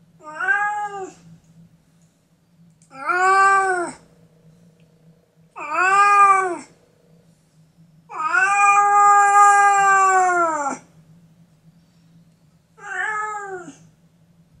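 Calico cat meowing five times, each meow rising and then falling in pitch; the fourth is a long drawn-out meow of nearly three seconds.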